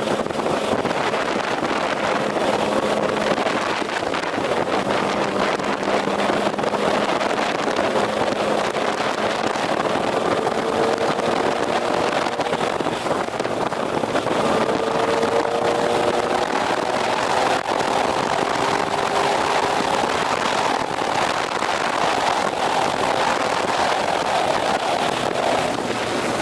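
Motorcycle running at highway speed: a steady engine drone under constant wind rush, with faint engine tones drifting slightly upward now and then.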